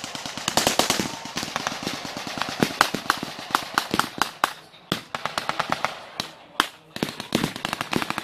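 Dense battlefield gunfire from blank-firing small arms: dozens of overlapping shots and rapid strings of shots, with brief lulls about five and six and a half seconds in.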